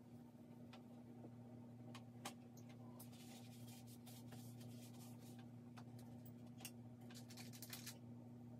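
Faint scratching of charcoal on drawing paper in two short spells of strokes, with a few light ticks, over a steady low hum.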